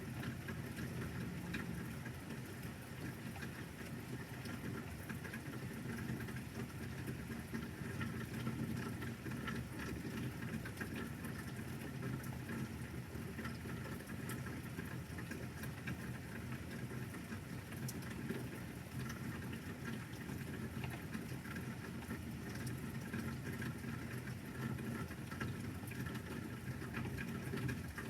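Light rain pattering steadily, with many small scattered drop ticks.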